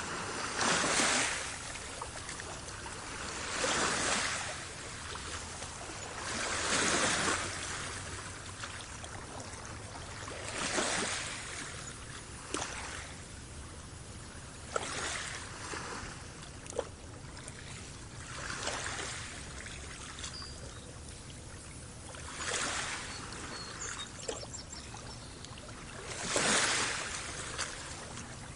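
Small waves washing up on a pebbly shore and drawing back, one swell about every three to four seconds, with a few faint clicks between them.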